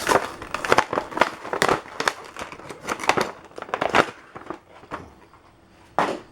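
Toy packaging being opened by hand: irregular crinkling and crackling, busiest over the first four seconds, then a single sharp click near the end.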